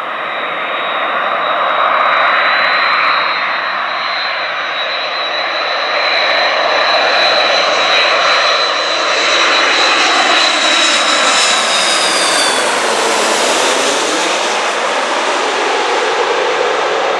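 Twin-engine jet airliner flying low overhead on landing approach, wheels down: a loud, steady jet roar with a high engine whine that sinks slightly in pitch and fades out about twelve seconds in as the plane passes over and away.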